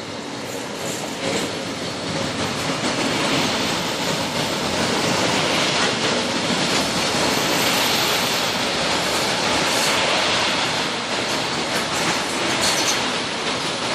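A long train of loaded open freight wagons carrying cement clinker rolls past close by: a steady rumble of steel wheels on rail that grows louder over the first few seconds and then holds.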